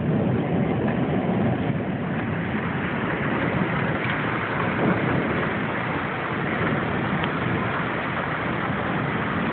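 Steady rushing noise of a subsiding storm: rain and wind, with no sharp sounds standing out.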